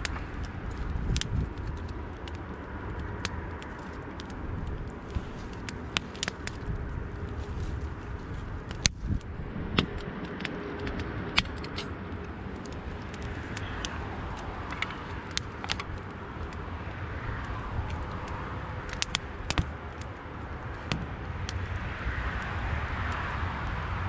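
Wood fire burning in a metal fire bowl, crackling with scattered sharp pops, a few louder ones near the middle, over a low steady rumble.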